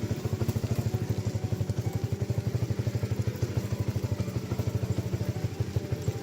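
A small engine running steadily, with a rapid, even putter of about a dozen beats a second.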